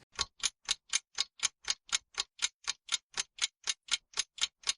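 Clock ticking sound effect counting down the time to answer a quiz question: steady, evenly spaced ticks, about four a second.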